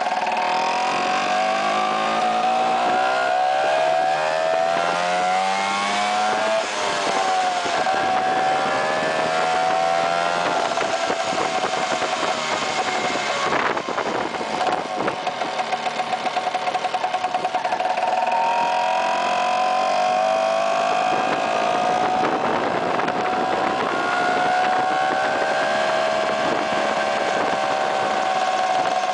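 Vespa PX two-stroke single-cylinder scooter engine on the move, pulling up through the gears: its pitch climbs for several seconds, drops sharply at a gear change about six and a half seconds in, shifts again around thirteen to fourteen seconds, then rises once more and holds at a steady cruise.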